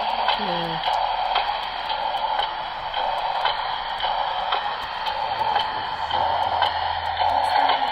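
HO-scale model train running on the layout track: a steady whirring rumble of the wheels, with irregular light clicks as it rolls over rail joints. Faint voices in the background.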